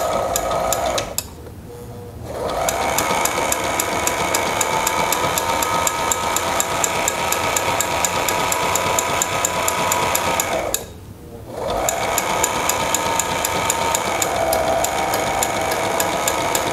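Sailrite LSZ-1 Ultrafeed portable walking foot sewing machine stitching through two layers of upholstery leather, with an even, rapid needle tick over its motor's whine. It runs briefly, stops about a second in, then sews steadily, pauses again for under a second near the end, and starts up once more.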